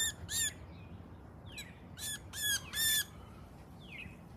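A small songbird giving harsh distress squawks, two near the start and three more about two seconds in, with a couple of faint short chirps between.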